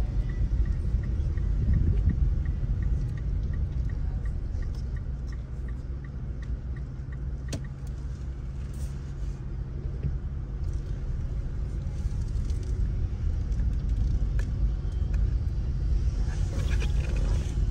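Car cabin noise while driving slowly: a steady low rumble of engine and tyres. A turn signal ticks about two to three times a second for the first seven or so seconds, and the hiss grows near the end.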